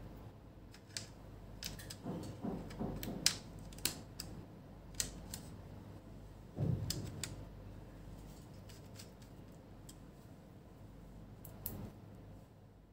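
Hands working on an opened laptop's plastic case and motherboard: scattered small clicks and taps, a quick run of them about two to four seconds in, and a duller knock about six and a half seconds in.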